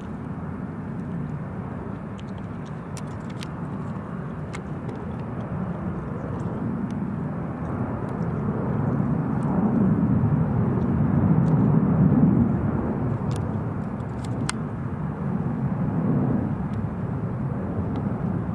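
Distant jet airliner engine rumble, swelling slowly to a peak about two-thirds of the way through and then easing off.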